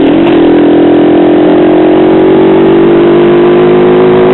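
Single-cylinder four-stroke engine of a 1999 Honda CG Titan motorcycle running under way. Its note dips briefly just after the start, then holds steady and rises slowly as the bike pulls along.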